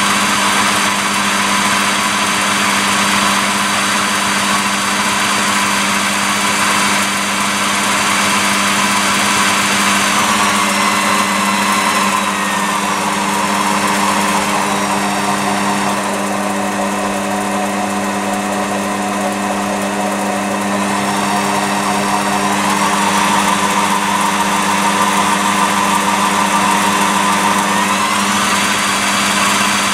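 Machine tool's variable-speed electric motor and belt-driven spindle running steadily with a high whine at about 1,200 rpm. About ten seconds in, the whine falls in pitch as the speed is turned down to around 1,000 rpm, and near the end it rises again as the speed is brought back up.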